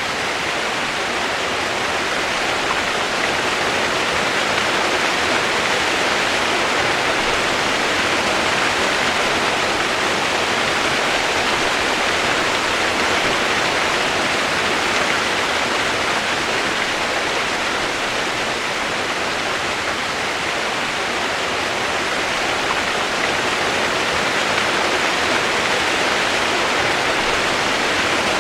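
Running water rushing steadily and evenly, without a break or change.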